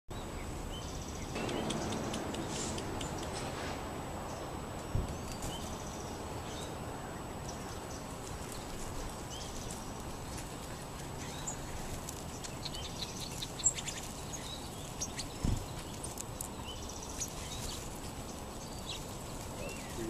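Sparrows chattering with short, high chirps and chips, scattered and growing busier in the second half, over a steady outdoor hiss. Two brief low thumps are heard, one about five seconds in and one near the end.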